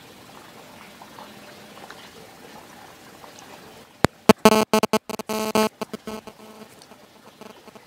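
Faint background hiss, then about four seconds in a harsh, distorted electronic beep breaks in, stuttering with sharp clicks and sudden dropouts for about two seconds before fading out.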